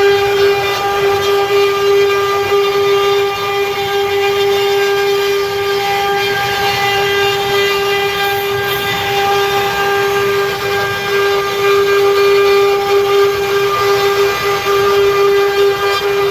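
Wood-cutting CNC router running at steady speed: a constant high whine from the spindle, with a rushing cutting noise under it.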